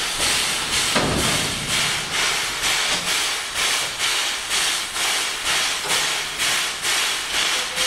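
Standing steam locomotive letting off steam, a hiss that pulses evenly a little under twice a second, with one sharp knock about a second in.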